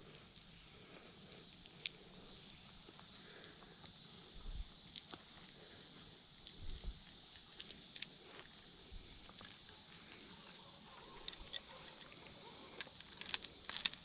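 Steady, high-pitched chorus of insects trilling without a break. A few light clicks near the end come from fishing pliers working treble hooks out of a bass's mouth.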